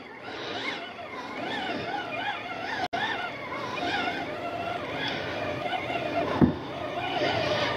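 RUNCL Titan II spinning reel being cranked against a hooked burbot, its gear whine rising and falling a few times a second. A brief thump about six seconds in.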